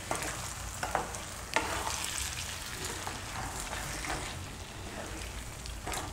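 A spatula stirring thick green chutney through potatoes and gravy in a non-stick kadai, over a low sizzle from the pan. A few light knocks of the spatula against the pan come through, about a second in and near the end.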